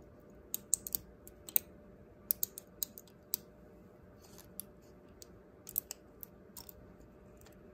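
Irregular sharp little clicks and ticks, some in quick clusters, of needle-nose pliers and a metal tool catching and snapping against a diecast model truck's rear chassis while working a small, stubborn suspension spring out.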